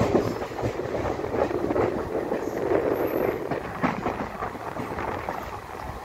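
Train running along the track: a steady rumble of wheels on rail, with a few sharp clicks over rail joints.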